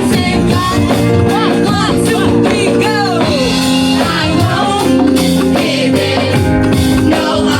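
Praise and worship song: voices singing over a band, with drums keeping a steady beat.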